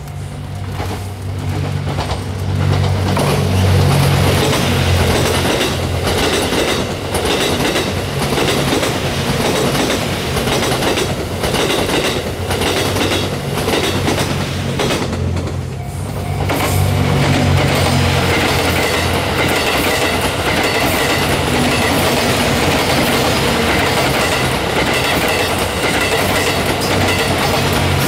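Series 87 Twilight Express Mizukaze diesel-electric train passing close by: a steady low engine drone under the noise of the running train, with wheels clicking over the rail joints. The sound dips briefly about halfway through, then picks up again.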